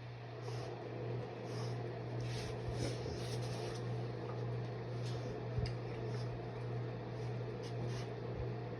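A steady low hum, such as a fan or appliance running, with faint, scattered rustling over it.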